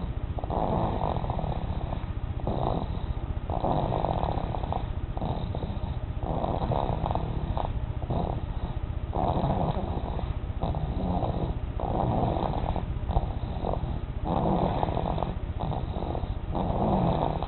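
Snoring: a steady run of noisy breaths, one every second or two.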